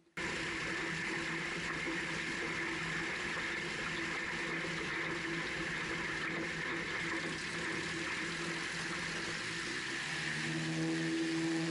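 Murphy Rebel amphibian floatplane's engine and propeller running steadily with wind and water noise as the plane taxis on the lake. The sound starts abruptly just after the start, and the engine note grows stronger about ten seconds in.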